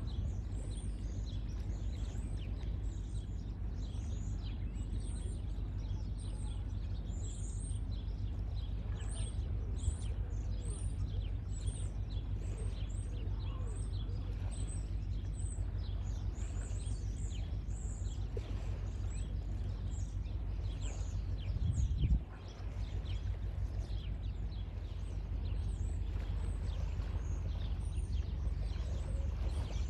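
Birds chirping and twittering continuously, many short high calls a second, over a steady low rumble. There is one brief low bump about three-quarters of the way through.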